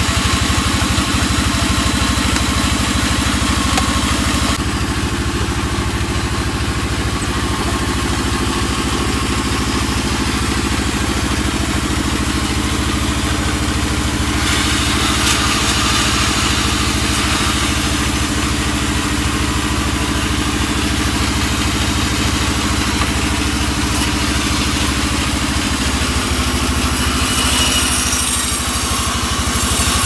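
Sawmill band saw running with a steady, engine-like hum. A cut through albasia wood ends about four seconds in, and the saw then runs on without cutting.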